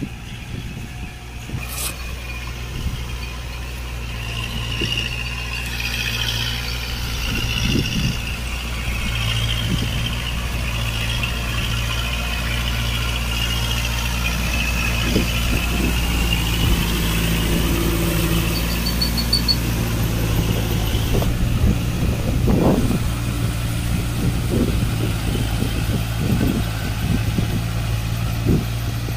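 Kubota MU4501 tractor's four-cylinder diesel engine running steadily as it drives a rotavator through a flooded, muddy field. It grows louder over the first several seconds as the tractor comes closer, then holds, with a few short knocks.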